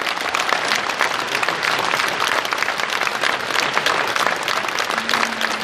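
Concert audience applauding, many hands clapping at once at a steady level; a short, steady low note comes in near the end.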